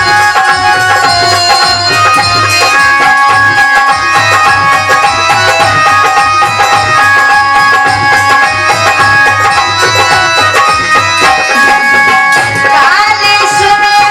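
Instrumental interlude in an Alha-style Indian folk song: a hand drum keeps a steady rhythm under held, sustained melody notes, with a short rising slide near the end.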